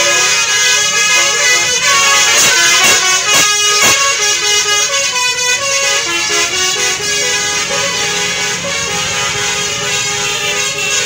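Telolet horn on a bus, a multi-tone musical air horn playing a stepping melody of held notes.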